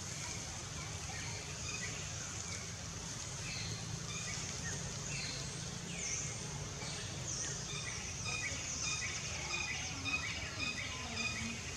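Outdoor ambience of birds chirping over a steady high insect drone; the short chirps come thicker in the second half.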